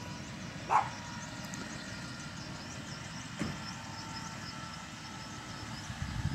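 Helicopter sitting on the ground with its turbine still running: a steady low rumble with a faint whine. A dog barks once about a second in.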